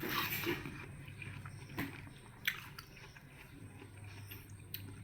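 Wet chewing and biting of juicy watermelon, with a few sharp crunching clicks.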